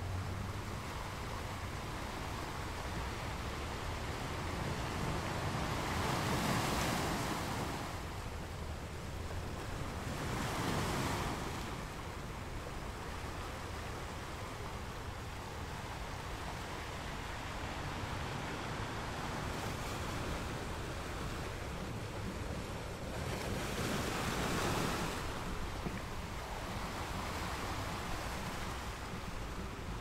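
Ocean waves breaking and washing in over a steady low surf rumble, with three louder surges about seven, eleven and twenty-four seconds in.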